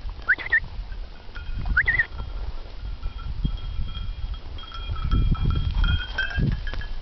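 Wind buffeting the microphone, strongest from about five seconds in. Over it runs a faint high ringing like a small bell, and there are two short rising chirps in the first two seconds.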